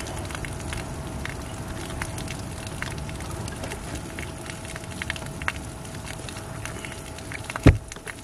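Steady spattering, crackling water noise with a faint steady hum, as from a bass boat's livewell aerator spraying water. One heavy footstep thumps on the boat deck near the end.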